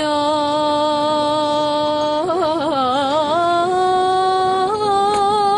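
A young woman singing a Turkish uzun hava unaccompanied. She holds one long note, breaks into a quivering ornamented run a little after two seconds in, then steps up in pitch twice and holds each note.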